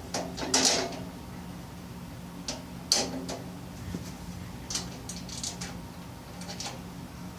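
Steel tool-box parts and hardware being handled and fitted: a few short metallic clinks and scrapes, the sharpest about half a second in and just before three seconds in, over a steady low hum.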